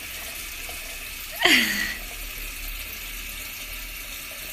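A steady hiss like running water, with one short, loud, high squeal about a second and a half in whose pitch drops quickly.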